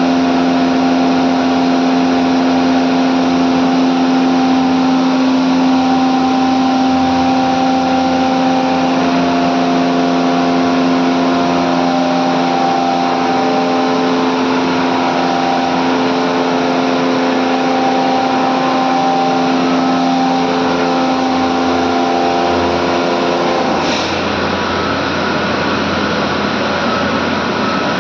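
Medical air compressors running: a steady hum with a strong low tone and several higher ones over a loud hiss. Near the end the tones cut off suddenly with a click, and the rushing hiss carries on.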